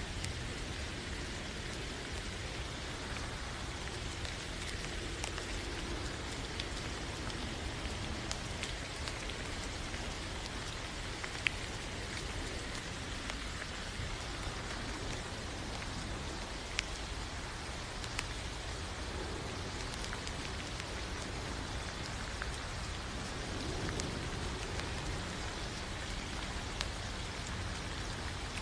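Steady rain falling: an even hiss with occasional sharper clicks of single drops.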